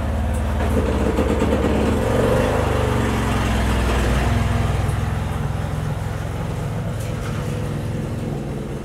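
An engine running steadily with a low, loud hum.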